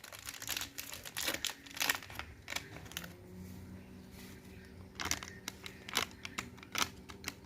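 Plastic packet of powdered milk crinkling and rustling in irregular crackles as it is handled and emptied into cake batter.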